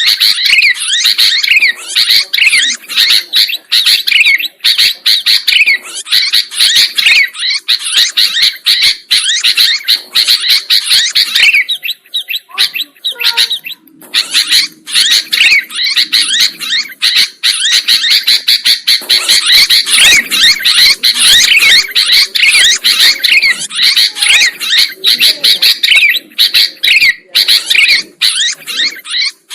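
Sooty-headed bulbul (kutilang) calling busily: rapid, chattering chirps that run almost without pause, with a brief lull about twelve seconds in.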